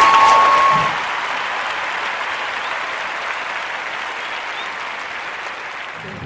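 Audience applauding at the end of a live performance, with a last held musical note cutting off about a second in; the applause then slowly dies away.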